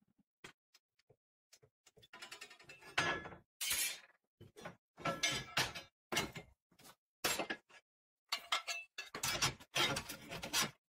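Steel parts clinking and clattering against a steel-topped workbench as they are handled, in a string of short knocks with a longer rattling stretch about two seconds in.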